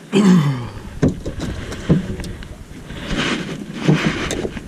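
Thuds and knocks on a small wooden skiff as fishing gear and bodies bump against it. A loud bump at the start carries a brief falling low tone, then a few sharper knocks follow, roughly a second apart.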